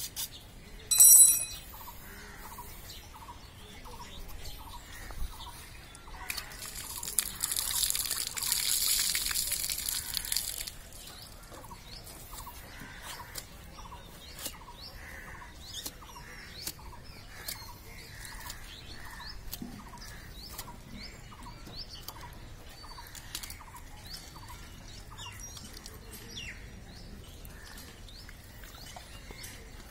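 Small birds chirping repeatedly over light knife and handling noises from butchering a goat carcass. A loud, short ringing scrape comes about a second in, and a rushing hiss runs for about four seconds from around six seconds.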